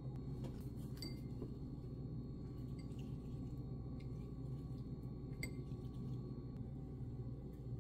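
A handful of faint, short clinks of ceramic and glass kitchenware over a steady low hum. The clearest clinks come about a second in and about five seconds in.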